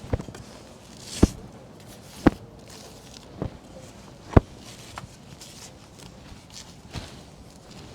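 Footsteps: a series of short, sharp thuds at an uneven pace of roughly one a second, the loudest at about one, two and four seconds in.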